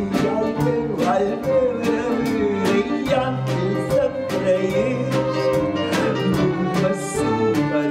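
Lively instrumental music with a quick, steady beat and a string melody.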